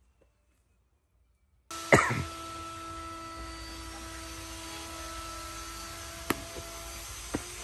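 Near silence, then workshop room sound with a steady hum starting about a second and a half in. A loud short burst comes just after, and two sharp knocks later from the wooden planks being handled on the bench.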